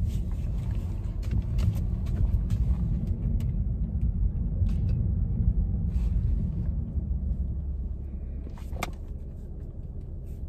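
Low road rumble of a car being driven, heard from inside the cabin, with a few faint clicks. It settles and gets quieter for the last few seconds as the car slows.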